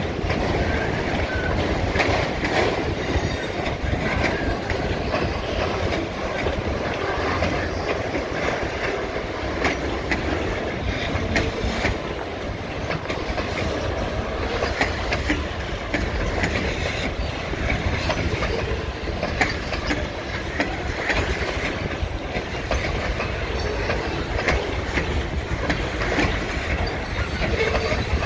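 Freight cars rolling past at steady speed: a continuous rumble of steel wheels on rail, with irregular clicks and clacks as the wheels cross rail joints. Autorack cars pass first, then covered hoppers near the end.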